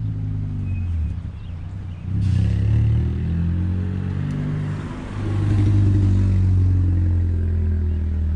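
Large diesel tractor engines idling with a steady low rumble, the pitch and level shifting slightly. A hissing rush joins in from about two seconds in and fades by about five seconds.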